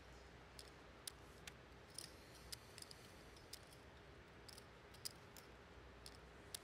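Faint, irregular light clicks of clay poker chips being handled and riffled at the table, over quiet room tone.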